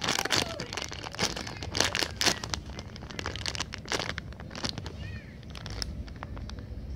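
Clear plastic packaging bag crinkling and crackling as it is handled and turned in the hands, in irregular rustles and snaps.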